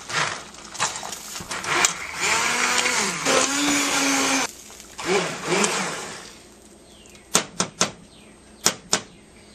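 Braun immersion blender puréeing chunks of cooked butternut squash in broth, its motor whine rising and then holding steady before cutting off about halfway. A short second burst follows, then a few sharp clicks near the end.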